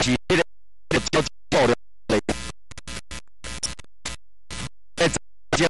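A person's voice chopped into about a dozen short fragments, each cut off abruptly, with dead silence between them.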